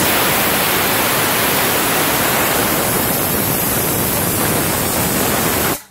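Pressure cooker whistle releasing a jet of steam: a loud, even hiss that starts and cuts off abruptly, lasting about six seconds.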